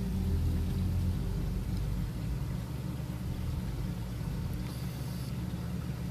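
Steady low hum of saltwater aquarium equipment (circulation powerheads and pumps) running, with a short hiss about five seconds in.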